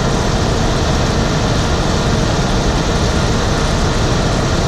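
Heavy farm machinery running steadily and loudly: a dense, even engine-and-machine noise with no breaks or sudden knocks.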